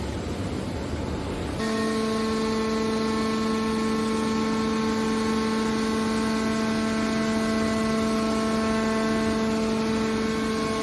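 Machine noise: a low rumble, then about one and a half seconds in a steady pitched hum starts suddenly and holds without change.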